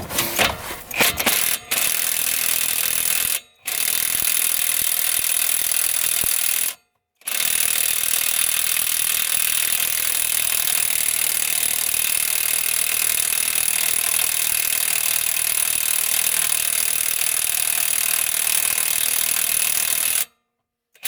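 Impact wrench hammering on the engine's flywheel nut in three runs with short stops between them, the nut not coming loose; the owner thinks it was fixed with Loctite.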